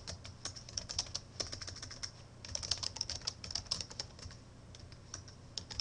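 Typing on a computer keyboard: a quick run of key clicks, with a brief pause about two seconds in and fewer strokes near the end.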